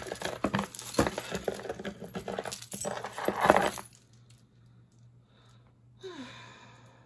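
A tangled pile of costume jewelry clinking and jangling as it is lifted and sorted by hand, loudest about three and a half seconds in. The clatter stops about four seconds in.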